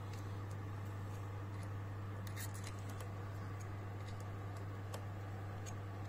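Screwdriver turning the screws of a raw-water impeller pump cover: faint scraping and small metallic clicks, a few together about two and a half seconds in, over a steady low hum.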